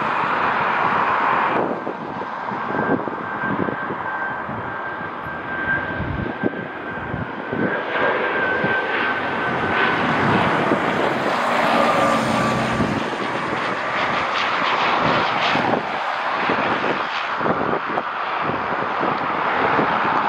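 Aircraft engines running as a plane passes: a steady wash of engine noise with a thin whine that slowly drops in pitch over several seconds.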